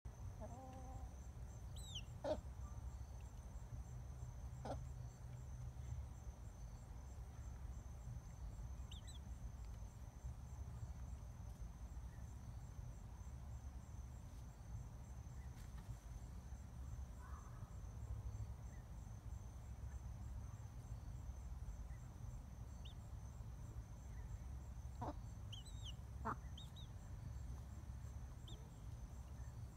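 Steady chirring of crickets over a low rumble, with a few short, high, downward-sliding peeps from a chick and a few sharp knocks, the loudest about two seconds in.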